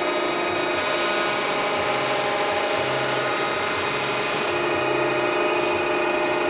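Okamoto ACC-1224DX surface grinder running: its hydraulic pump and spinning grinding wheel give a steady hum with several steady whining tones while the table is hydraulically fed back to its starting position.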